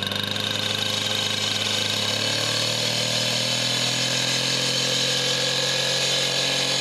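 A power saw's motor running steadily, used to cut the granite cap stones, with a slight shift in pitch during the first second or so.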